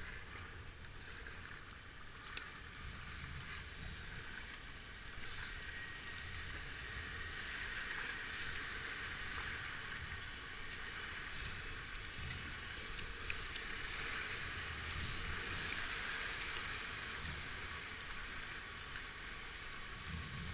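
Rushing whitewater of river rapids washing around a kayak as it is paddled downstream, a steady wash that swells somewhat through the middle.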